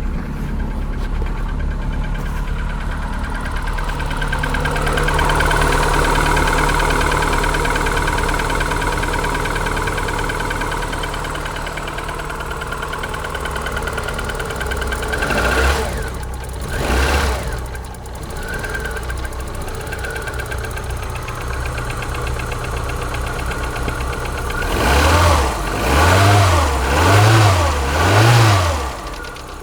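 Rover K16 1.4 engine of a Polonez Caro idling cold on a near-freezing morning with a knocking that the owner takes for piston slap. It is revved briefly twice around the middle, then blipped four times in quick succession near the end.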